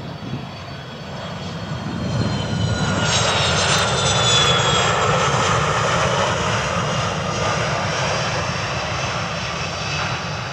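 Jet airliner landing: the Fokker 70's rear-mounted Rolls-Royce Tay turbofans run with a high whine, growing louder about two seconds in to a sustained loud rush as it rolls out on the runway after touchdown.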